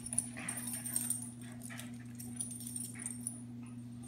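Two dogs play-fighting: short, scattered dog noises with a few sharp peaks, over a steady low hum.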